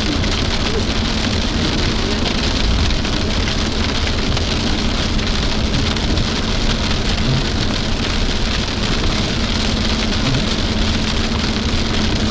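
Rain hitting the roof and windshield of a moving car, a steady dense hiss with a low, even hum of engine and road underneath.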